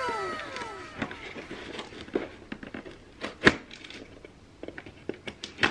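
Scissors slitting the packing tape along the seam of a cardboard box: scattered clicks, scrapes and light tearing, the sharpest snap about three and a half seconds in. A drawn-out falling cry fades out in the first second.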